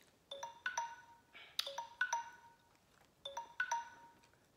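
Smartphone timer alarm going off: a short figure of ringing, chime-like notes that repeats about every one and a half seconds, signalling that the timed countdown has run out.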